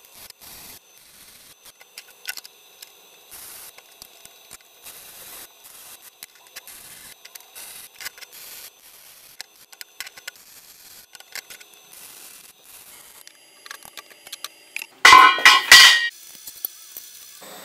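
Steel stock being handled and set in place on a steel workbench: faint scrapes, taps and clicks of metal on metal. About 15 seconds in there is a loud metallic clatter with ringing, lasting about a second, and then a faint steady high tone.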